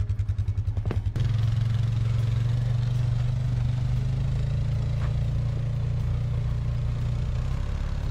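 ATV engine running while driving over snow. The drone pulses for about the first second, then steadies and rises slightly in pitch.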